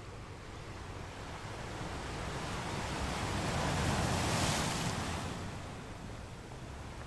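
A rush of noise, like surf, that swells to a peak about four and a half seconds in and then fades away.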